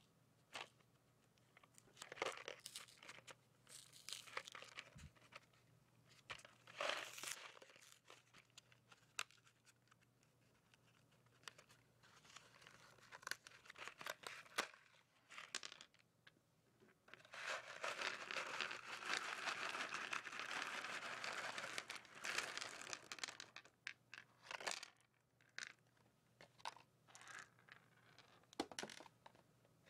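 Candy packaging handled close up: a cardboard candy box and its crinkly wrapper being opened, with scattered crackles and taps and a steady stretch of rustling and tearing for about six seconds just past the middle.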